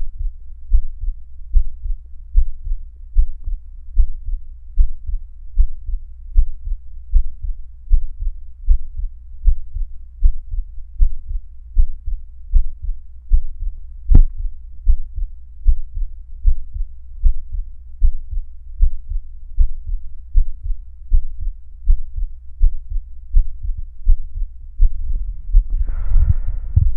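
Heartbeat: a steady, even run of deep, muffled paired thumps, the lub-dub of a beating heart. A single sharp click falls about halfway, and a hissier sound joins the beats near the end.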